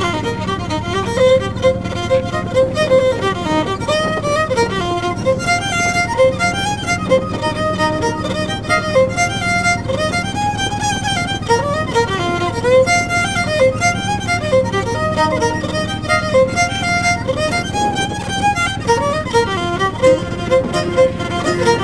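Background music: a fiddle tune over steady low notes and a regular beat.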